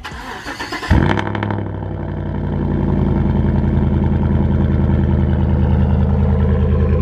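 GMC Sierra pickup's engine starting about a second in, flaring briefly, then settling into a steady idle through its exhaust.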